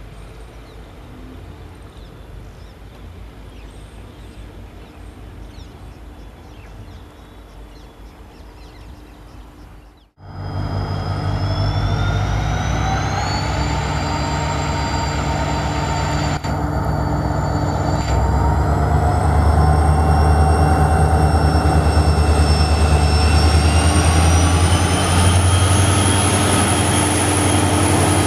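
WDP4D diesel locomotive (EMD 16-cylinder two-stroke) under hard acceleration. For about the first ten seconds its hum is fainter and farther off; then the engine is suddenly loud and close, its turbocharger whine climbing steadily in pitch, and it grows louder again partway through.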